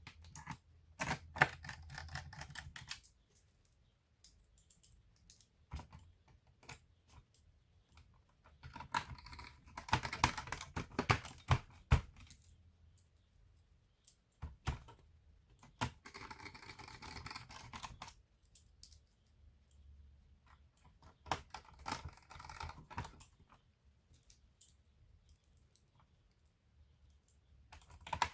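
Bursts of rapid, light clicking and tapping on a laptop's hard plastic, in clusters of one to three seconds with pauses between.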